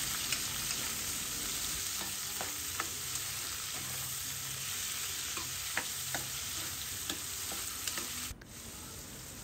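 Sliced onions sizzling in hot oil in a pot as they are sautéed, with a metal spoon stirring and scraping them and giving scattered light clicks against the pot. The sizzle drops suddenly a little before the end.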